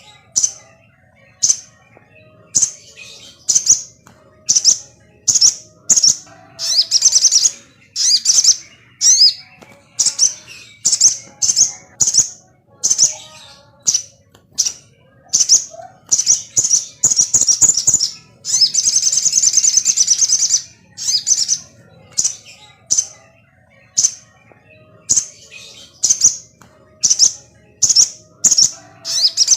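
Sogon songbird calling: short, sharp high chirps repeated about once or twice a second, with a longer chattering phrase about eighteen seconds in. This is a lure call played to provoke other sogon birds into calling and singing.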